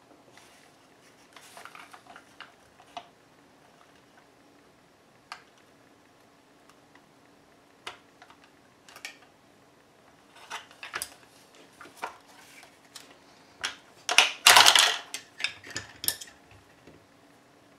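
Irregular hard plastic clicks, snaps and rattles as the plastic earcup housing of a Howard Leight by Honeywell AM/FM earmuff radio is pried apart and handled, with a louder clatter lasting about a second near the end.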